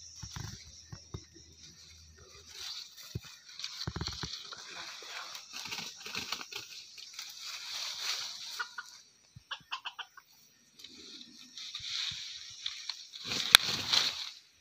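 Red junglefowl rooster clucking, with a quick run of short clucks about halfway through and the loudest calls near the end.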